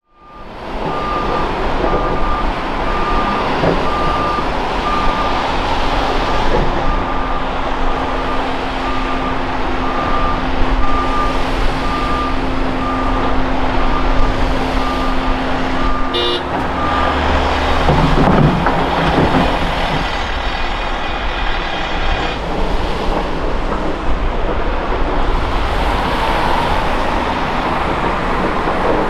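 Diesel engines of a Volvo tracked excavator and a Volvo articulated dump truck running, with a reversing alarm beeping steadily about once a second until about 17 seconds in. A heavier low rumble follows about a second later.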